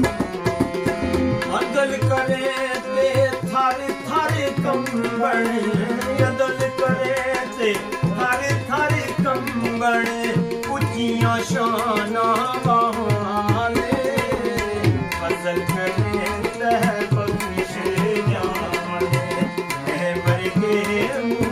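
Tabla playing a steady rhythm under a harmonium's held, droning chords, accompanying a man's solo singing of Pothwari sher-khwani verse.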